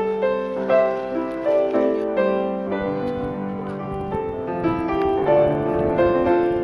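Piano music: a steady run of notes with chords.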